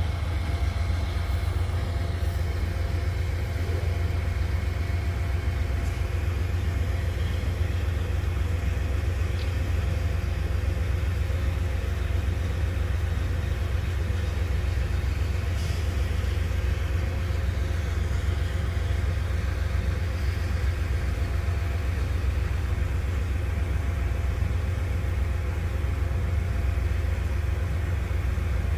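Freight train with diesel locomotives: a steady low rumble with a few faint steady higher tones over it, unchanging throughout.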